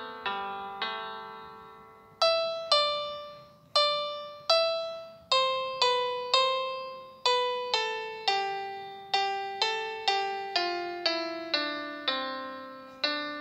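Background music: a keyboard plays a slow melody of single struck notes, each ringing and fading before the next, quickening near the end.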